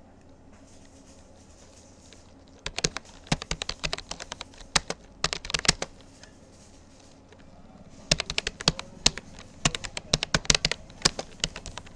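Typing on a Rapoo computer keyboard: quick runs of key clicks broken by pauses. The first run starts about two and a half seconds in, and there is another gap of about two seconds around the middle.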